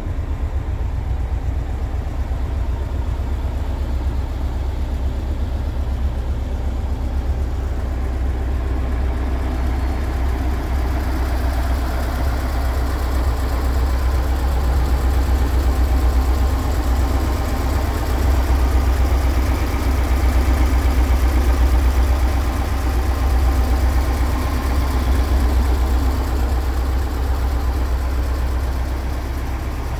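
Volkswagen Type 2 bus's air-cooled flat-four engine idling steadily with a constant low rumble. It is heard at first from inside the cabin, then up close at the open rear engine bay, where from about a third of the way in it is louder and fuller.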